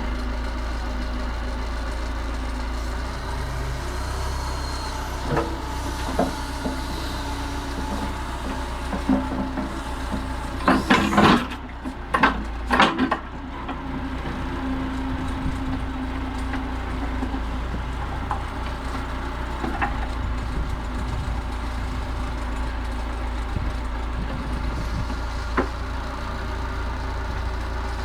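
Massey Ferguson 50HX backhoe loader's diesel engine running steadily, with a brief cluster of loud clanks and knocks near the middle and a few lighter knocks elsewhere.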